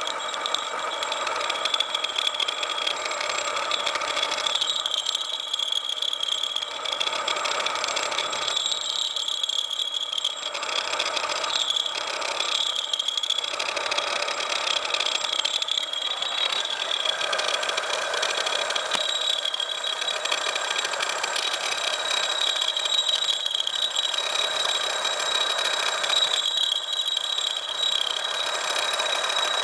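Home-built mini lathe with a 750 W motor running while a carbide turning tool faces a large back-plate disc held in the chuck: a steady machining whine with a high tone on top, the cutting noise swelling and dipping every few seconds.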